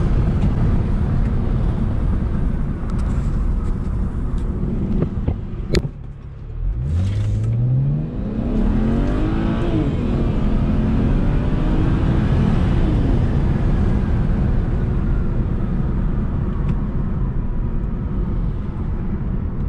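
BMW N54 twin-turbo straight-six pulling hard under throttle, heard from inside the cabin. It briefly drops away about six seconds in, then climbs in pitch through several gear changes on the JB4-tuned map.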